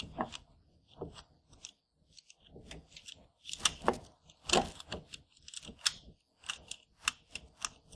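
Gloved hands fitting metal clamps back onto a diesel fuel filter element and its mount: a string of irregular light clicks, rattles and scrapes, the loudest about halfway through.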